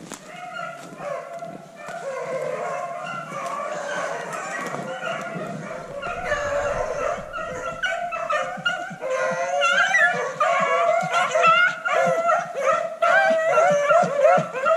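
A pack of beagles baying as they run a cottontail rabbit's scent trail, many voices overlapping. The baying grows louder as the pack comes closer.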